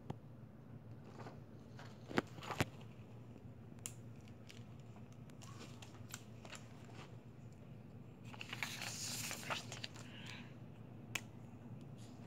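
Paper sheets being handled and shuffled on a table, with a few sharp clicks and taps of marker pens being picked up and set down; the loudest clicks come a little after two seconds in, and a longer rustle of paper comes about two thirds of the way through. A low steady hum runs underneath.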